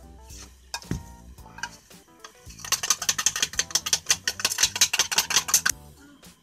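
Metal ladle scraped rapidly, a fast run of sharp scratchy strokes, about eight a second, for some three seconds starting about two and a half seconds in, over light background music.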